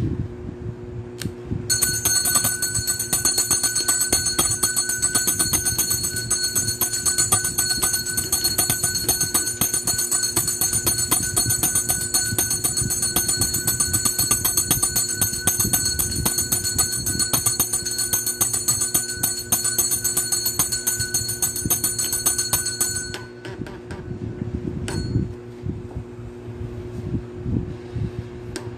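Altar bell shaken rapidly and continuously for about twenty seconds during the blessing with the monstrance, then stopping abruptly, over a steady low hum.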